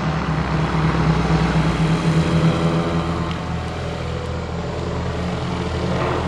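Piston engines of several propeller-driven aerobatic biplanes droning overhead in formation. The engine note shifts about two seconds in as the aircraft pull through a manoeuvre.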